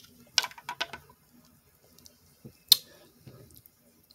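Small wet clicks and smacks of sauce-covered shellfish being handled and pulled apart by hand: a quick cluster of clicks about half a second in, one sharp click near the middle, then faint soft rustling.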